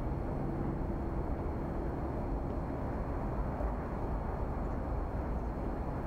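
Steady low rumble of road traffic crossing the elevated expressway bridges over the river.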